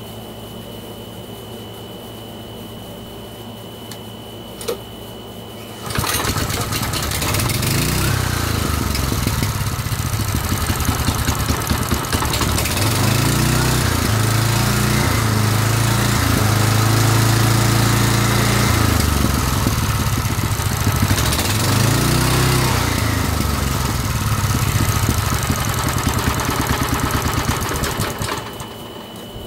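Honda GX270 single-cylinder engine starting about six seconds in and running. It is revved up and back down three times, the middle rev held for several seconds, and then shut off near the end.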